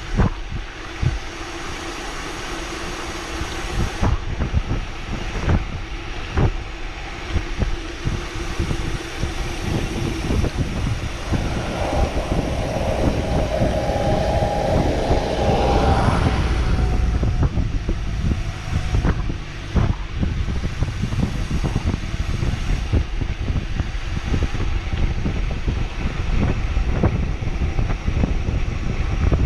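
Wind buffeting the microphone and the rattle and knocks of a mountain bike descending a rough downhill trail at speed. A steady hum runs through the first third, and a higher whine rises and fades near the middle.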